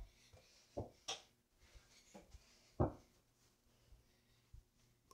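A few short, soft knocks and thumps from a one-on-one game on an over-the-door mini basketball hoop, the loudest thump nearly three seconds in.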